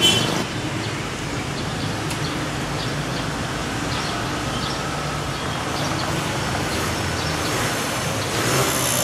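Steady street traffic noise, swelling briefly near the end as a vehicle passes.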